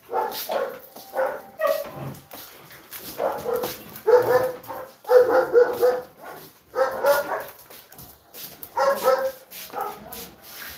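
Dogs barking, a string of about ten barks in uneven bursts, loudest in the middle.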